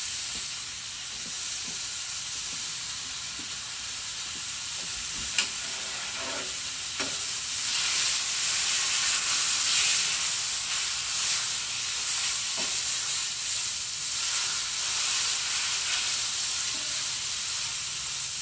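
Chuck steaks sizzling hard on a hot griddle over a Weber charcoal kettle, a steady frying hiss that gets louder about eight seconds in as the meat is worked. A few light clicks of a metal utensil on the griddle.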